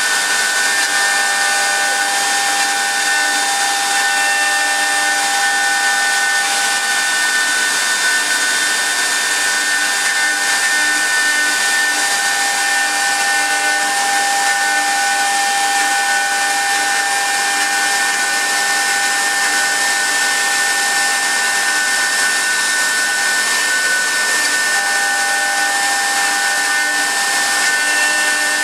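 CNC wood turning lathe running, its air-cooled spindle giving a steady rushing noise with a high whine, while a few other steady tones drop out and come back.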